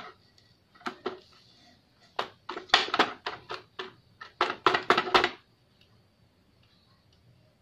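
Sharp plastic clicks and knocks from a heart-shaped toy makeup case being handled on a table, coming in quick irregular runs and stopping a little after five seconds in.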